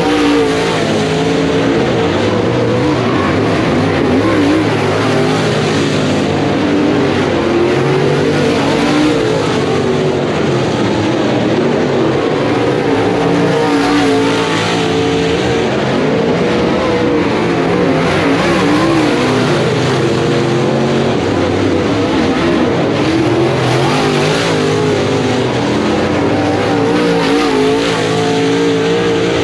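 Several dirt-track race cars' engines running hard around a dirt oval, loud and continuous, their pitch rising and falling as the cars accelerate down the straights and lift for the turns.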